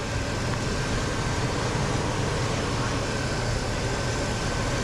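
Steady low hum of idling vehicle engines, the jump-started car now running on its own with its alternator charging.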